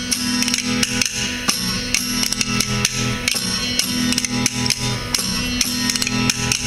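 Background music: plucked guitar over percussion, with frequent sharp hits.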